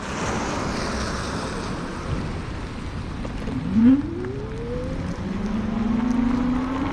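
Wind rushing over the microphone of a moving electric bike, with the e-bike motor's whine rising in pitch: once quickly a little past halfway, the loudest moment, then slowly again near the end as the bike speeds up.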